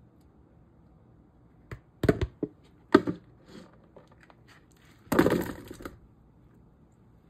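A plastic colander knocks a few times as it is handled, then boiled potato chunks tumble out of it into a bowl in one short rattling spill about five seconds in.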